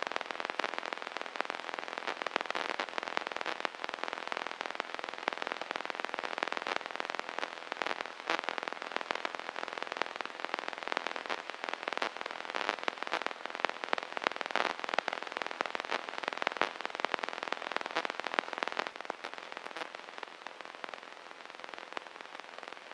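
Crackling, hissing static on a light aircraft's intercom and radio audio, full of small clicks, growing quieter about three-quarters of the way through.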